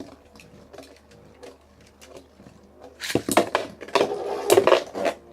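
Two metal Beyblade spinning tops, Lightning L-Drago and Galaxy Pegasus, spinning in a plastic BB-10 stadium with faint ticking at first, then from about three seconds in a rapid flurry of loud clashes and rattling as they collide hard.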